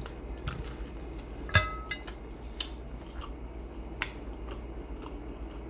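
Tableware clinking: scattered light clicks and taps, with one louder, ringing clink about a second and a half in.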